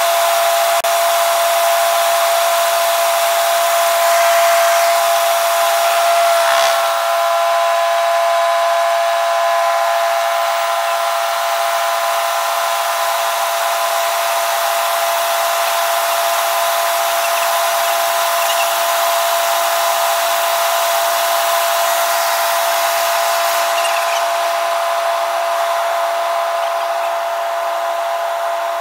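Robinson light helicopter in flight, heard from inside the cabin: a steady high whine of several tones over an even rush of noise.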